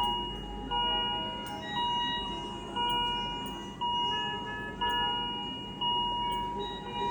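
Electronic alarm tones from neonatal intensive-care equipment: a steady beep that restarts about once a second, with shorter beeps at several other pitches overlapping.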